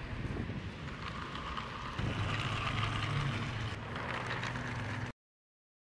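Wooden toy dump truck rolling across paving tiles with a steady whirring hum, wind buffeting the microphone. It grows louder about two seconds in and cuts off abruptly a little after five seconds.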